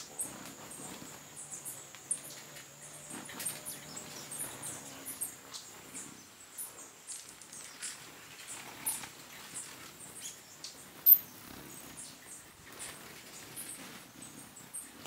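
Hummingbirds at a nectar feeder: many short, high chips and squeaks, with the low hum of hovering wings for the first few seconds. One much louder sharp high note comes about eleven seconds in.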